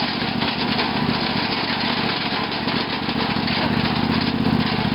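Craftsman lawn tractor's 18.5 hp Briggs & Stratton Intek engine running steadily as the tractor drives along a wooded trail.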